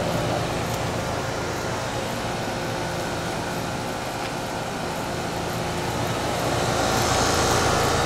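Outdoor Rheem Classic 5-ton heat pumps running in cooling mode: a steady hum from the Copeland scroll compressors under the rush of the condenser fans. The fan rush grows a little louder near the end.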